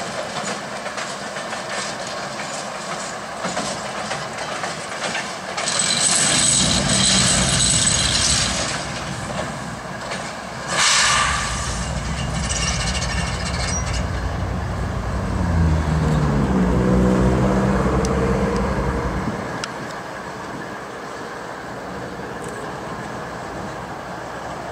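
Two GE GEVO diesel locomotives running light past, their V12 diesel engines droning, with the pitch rising for a few seconds past the middle. There is a brief hiss about eleven seconds in. The engine sound drops away about three quarters of the way through.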